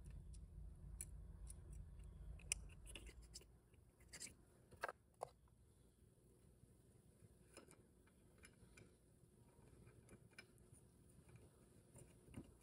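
Faint scattered clicks and light metallic ticks of small valves and springs being handled and pushed into the bores of a VW 01M/01P valve body, over near-silent room tone. A low hum stops about three and a half seconds in.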